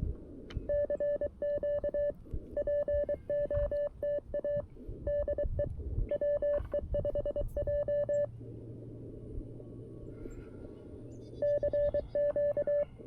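CW (Morse code) sidetone from a CFT-1 QRP transceiver: one steady tone keyed in dots and dashes. It comes in two runs with a pause of about three seconds between them, where the receiver's band-noise hiss comes up.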